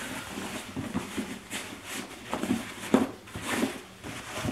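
A cotton drawstring dust bag rustling in irregular bursts as a leather bag is worked out of it.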